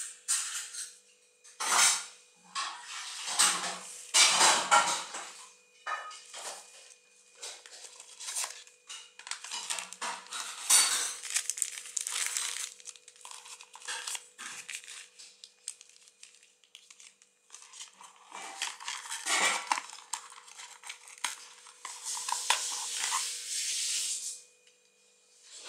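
Plastic wrapping crinkling and a cardboard phone box and its inserts being handled, in irregular bursts with light knocks and scrapes.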